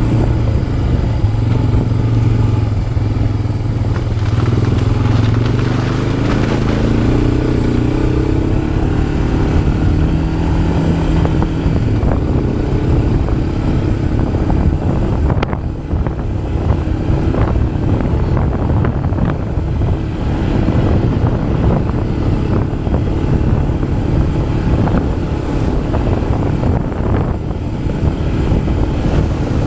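ATV engine running as the quad rides a trail, its pitch rising through the first part and then staying steadier, with scattered short knocks.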